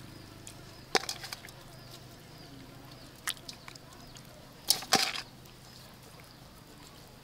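Raw fish steaks handled in a stainless steel bowl: wet rubbing with a few sharp knocks and slaps against the bowl, one about a second in and a cluster near five seconds.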